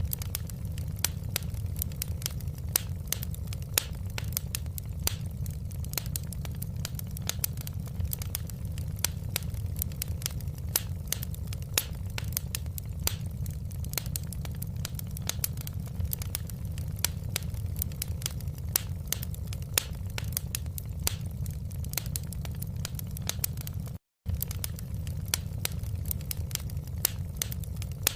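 Fireplace wood fire crackling, with many sharp pops and snaps over a steady low rumble. The sound drops out completely for an instant near the end.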